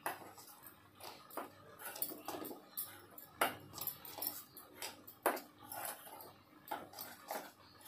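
Hand rubbing and mixing dry gram flour (besan) with spices in a stainless-steel bowl: irregular scraping and light clicks of fingers and bangles against the steel, with two louder knocks about three and a half and five seconds in.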